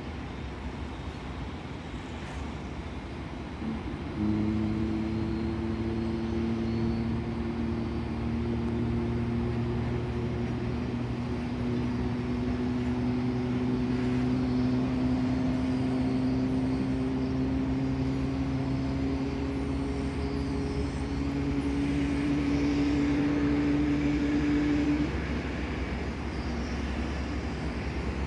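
A steady engine hum at an airport: a low drone with a higher tone that climbs slowly in pitch. It starts suddenly about four seconds in and cuts off a few seconds before the end, leaving a quieter rumble.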